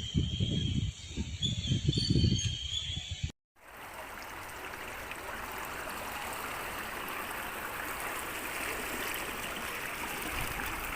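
Irregular low rumbling buffeting for about the first three seconds, then a sudden cut to the steady rush of fast-flowing floodwater.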